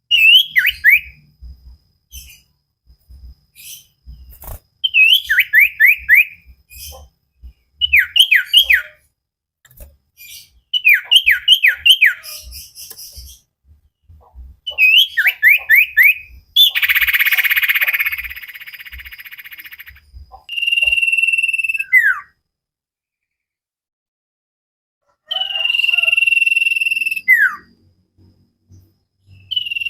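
Common iora (cipoh) singing: groups of three or four quick downslurred whistles repeated every few seconds, a harsh rasping stretch about halfway through, then long steady whistled notes each ending in a sharp falling slur.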